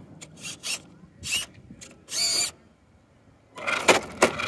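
Redcat 1964 Impala RC lowrider's suspension servos whirring in short bursts as the body is raised and lowered, one longer run with a steady whine. Near the end there is a louder clatter of clicks and knocks as the car starts hopping on the asphalt.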